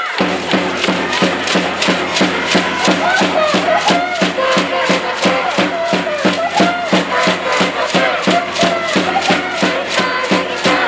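Spectators' organised cheering: a steady fast beat of about four strokes a second under shouted, chant-like crowd voices.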